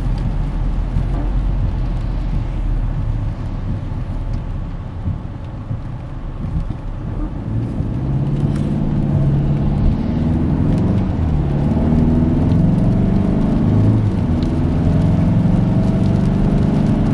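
Car engine and road noise heard from inside the cabin. The engine picks up about halfway through, its pitch rising and falling as the car accelerates.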